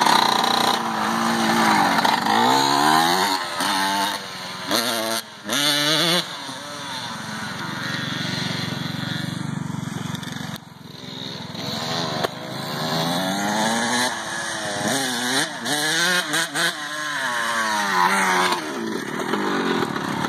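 Dirt bike engine revving hard and running up through the gears, pitch climbing and falling again and again. It fades about halfway through as the bike moves off, then grows louder with more rising revs.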